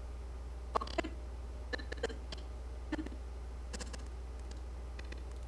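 Scattered soft clicks of a computer mouse and keyboard, a dozen or so irregular taps, over a steady low hum.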